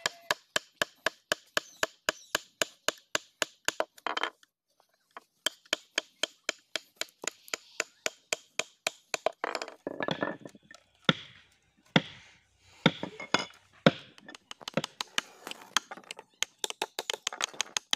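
Wooden mallet tapping a carving chisel into a wooden board in quick, even strokes, about four or five a second, as the chisel cuts a relief pattern. The tapping stops briefly about four seconds in and is less regular in the middle.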